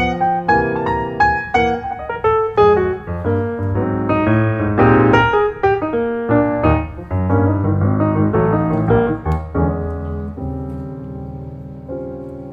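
Solo piano music: a quick run of notes, then slower held chords that fade out, with one last chord near the end.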